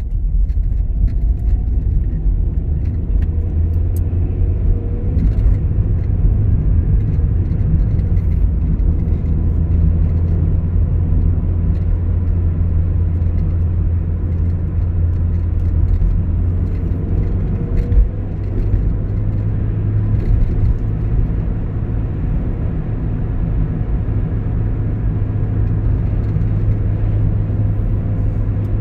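Steady low rumble of a car's engine and tyres heard from inside the moving car's cabin, with one brief knock about two-thirds of the way through.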